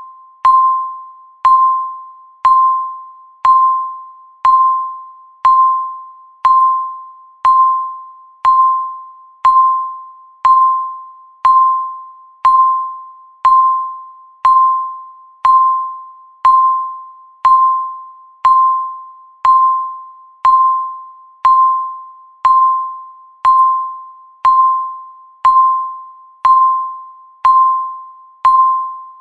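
Countdown timer's tick sound: a short high tone struck once every second, each one fading away quickly, in an even, unchanging rhythm.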